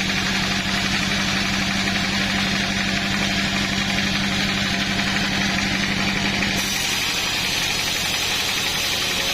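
A small engine running steadily at idle, with an even fast pulse. The sound shifts abruptly about two-thirds of the way through.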